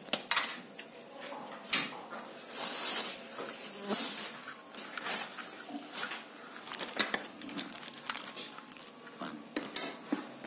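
Scattered clinks and knocks of plates and utensils being handled on a table, with a brief louder rustle about three seconds in.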